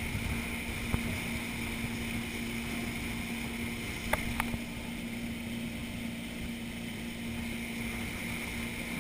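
Towing motorboat's engine running steadily at speed, with rushing wake water and wind on the microphone. A couple of short sharp knocks come about four seconds in.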